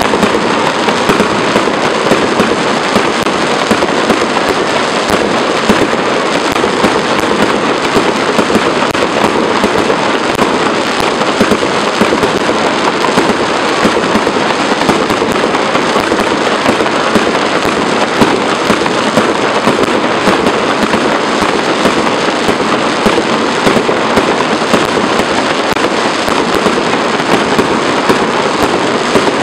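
Fireworks going off in a dense, unbroken barrage of overlapping bangs and crackles, with no letup.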